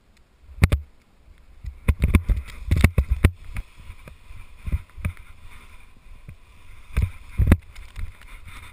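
Wind buffeting the microphone in gusts: a steady low rumble broken by a string of sharp thumps, thickest in the first few seconds and again about seven seconds in.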